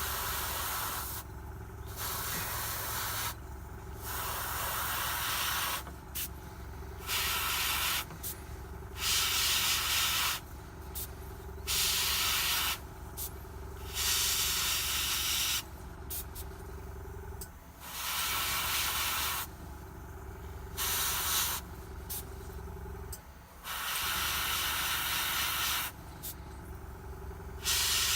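Airbrush spraying thinned acrylic paint in short bursts of hiss, about a dozen, each roughly a second long, as the trigger is pulled and released. A steady low hum runs underneath.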